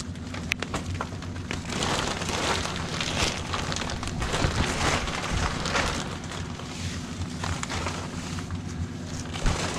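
Fiberglass insulation being pulled out of a ceiling opening and stuffed into a plastic trash bag: dense rustling and crackling, loudest in the middle seconds, over the steady hum of an air scrubber fan.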